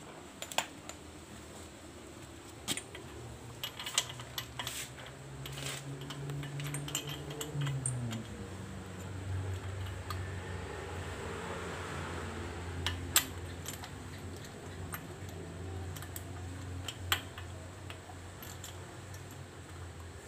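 Scattered metallic clinks and rattles of hand tools on the motorcycle's engine parts. From about five seconds in there is also a low steady hum, which drops in pitch around eight seconds and then holds.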